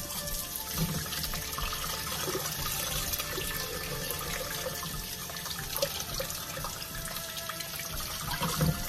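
Kitchen faucet running in a steady stream onto a whole raw chicken as it is rinsed and rubbed by hand in a stainless steel sink, water splashing into a metal bowl beneath. A couple of brief knocks about a second in and near the end.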